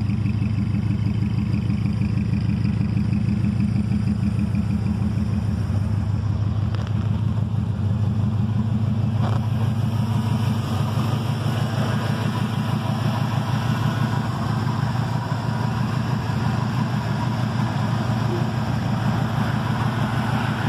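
1984 Ford Mustang's engine idling steadily, an even low-pitched pulsing with no change in speed.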